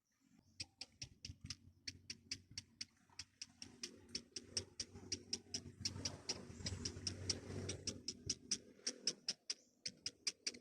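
A rapid, even series of sharp high ticks, about four to five a second, over a low rumble that grows louder midway and fades near the end.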